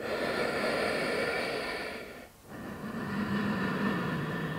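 A woman's deep yoga breathing, picked up close on a clip-on microphone: two long breaths of about two seconds each, with a short pause between them.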